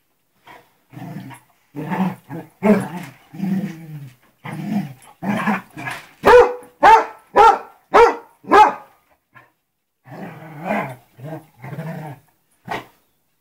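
Basset hounds and a small white dog play-fighting: a run of low growls, then five loud barks about two a second, then more growling near the end.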